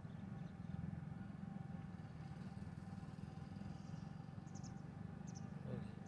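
Steady low outdoor background rumble, with a few faint, very short high chirps near the end.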